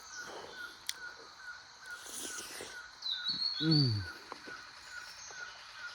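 Outdoor rural ambience: a faint chirping repeating about three times a second, with a short high warbling bird call about three seconds in. Just after it comes a brief falling hum from a person.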